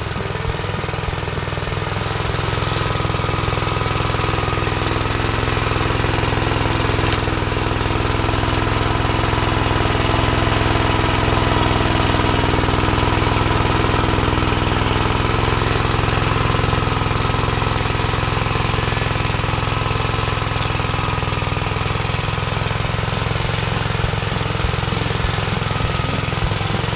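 1959 Gravely walk-behind tractor's engine running steadily under load, driving its rotary plow through leaf-covered soil.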